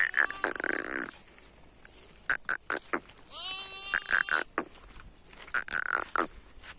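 Bleating animal calls, twice, among sharp crackles of dry twigs and brush underfoot.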